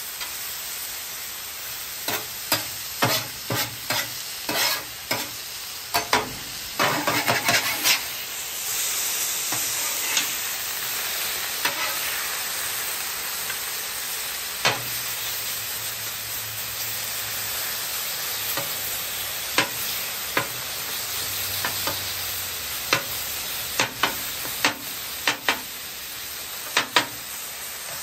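Sliced chicken sizzling in oil on a hot steel flat-top griddle, with sharp metal clacks and scrapes of a spatula and bench scraper striking the griddle top as the stuck-together chicken is chopped apart. The clacks come in a quick run over the first several seconds, then more sparsely.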